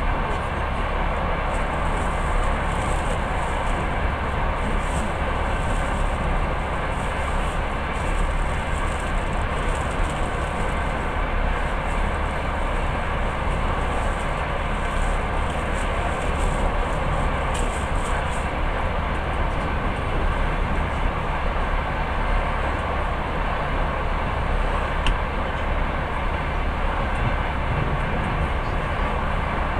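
Passenger train running at speed, heard from inside the carriage: a steady rumble of the wheels on the rails, with an even hiss over it.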